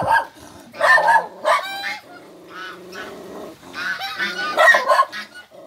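Domestic geese honking in repeated bursts of loud calls.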